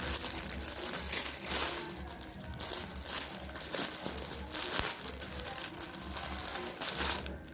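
Plastic parcel packaging crinkling and rustling as it is handled and opened.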